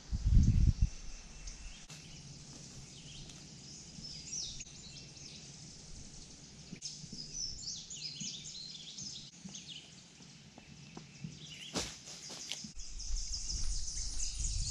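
Small birds chirping on and off in woodland, short high calls scattered through the middle. A soft thump comes right at the start, and near the end footsteps start crunching through dry leaf litter.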